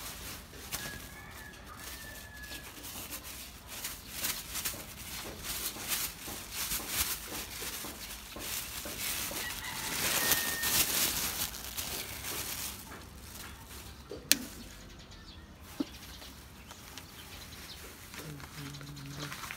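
A rooster crowing faintly near the start and again about halfway through, over a rustling, crackling noise that swells in the middle and fades, with one sharp click later on.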